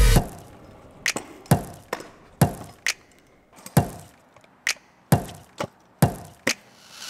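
About ten sharp knocks and clacks at irregular intervals: a stunt scooter's wheels and deck striking concrete as the rider lands and rolls.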